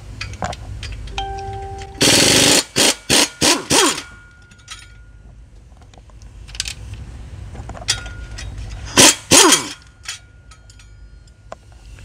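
Pneumatic wrench run in short bursts, spinning out the bolts of a broken flexplate. A long burst comes about two seconds in, then four quick ones, and two more near the middle of the second half, each trailing off in a falling whine. Light clicks of metal on metal fall between the bursts.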